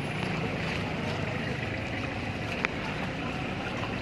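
A motor vehicle engine running steadily under a continuous wash of street noise, with one short sharp tick about two and a half seconds in.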